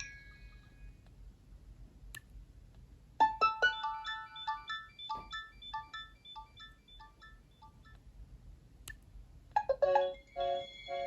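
Nokia 7710 ringtones playing from the phone's speaker at reduced volume. A melody of short, echoing notes starts about three seconds in and fades away. After a click, a different ringtone of repeated notes starts near the end.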